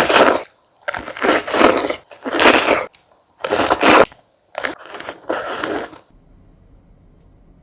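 Close-miked crunchy bites and chewing of fresh fruit: six loud crunching bursts in quick succession, then it falls quiet about six seconds in, leaving a faint low room hum.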